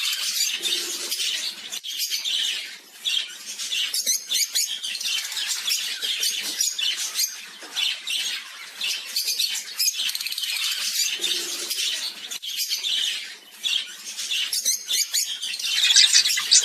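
A flock of African lovebirds and budgies chattering and squawking without a break, with a louder burst of rapid, buzzy calls near the end.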